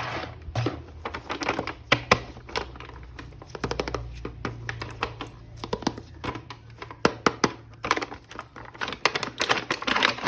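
Hands opening and handling a plastic-packaged action figure: a run of small clicks and taps, coming thicker and faster near the end.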